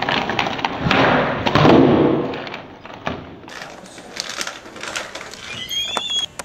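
Skateboard popped and landed on a hard tile floor: sharp clacks of the tail and deck, with the wheels rolling, loudest in the first couple of seconds. Softer knocks and camera handling follow, with a short high squeak near the end.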